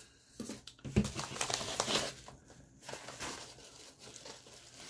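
Paper packaging crinkling and rustling as a packing slip and a manila mailer envelope are handled, with a sharp knock about a second in. The rustling is busiest in the first two seconds, then comes in softer bursts.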